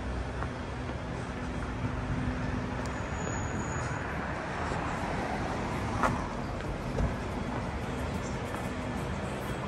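City street traffic: a steady low hum under continuous road noise, with two sharp knocks about six and seven seconds in.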